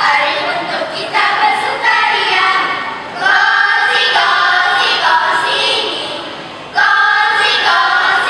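A chorus of school pupils voicing a choral speaking piece in unison. Their phrases are chanted together and each starts sharply, with a fresh entry every second or two.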